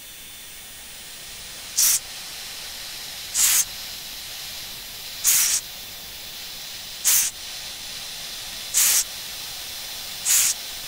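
Sharp breaths hissing into a headset boom microphone, six of them at a steady pace of roughly one every second and a half, over a constant cockpit hiss. This is the rhythmic straining breathing used to hold off G-forces during a hard pull in a jet.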